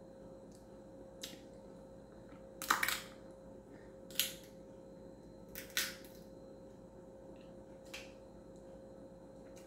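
Crab leg shell cracked and snapped apart by hand: three sharp crackling snaps, the loudest about three seconds in and the others about a second and a half apart, with a couple of fainter clicks.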